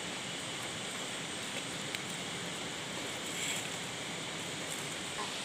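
Shallow river flowing over rocks: a steady rush of water.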